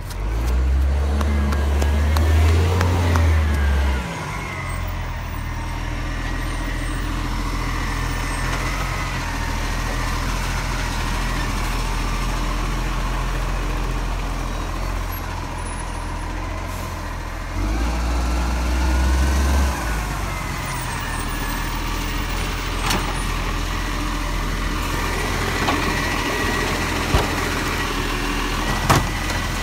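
Iveco side-loader garbage truck's engine running close by as the truck pulls up, with a heavy low rumble for the first few seconds and again at about 18 seconds. A whine glides up and down over the engine, and a few sharp clicks come near the end.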